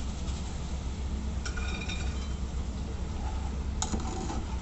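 A metal utensil clinking against cookware while fried french fries are lifted out of a pan of hot oil: two clinks with a short ringing tone, about a second and a half in and again near the end, over a steady low hum.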